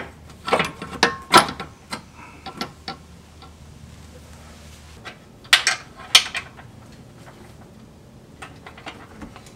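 Sharp metal clanks and clicks as a steel upper control arm and its hardware are handled and fitted into the frame bracket under a Jeep. A cluster of knocks comes in the first second and a half, two more sharp clanks about five and a half and six seconds in, and lighter taps near the end.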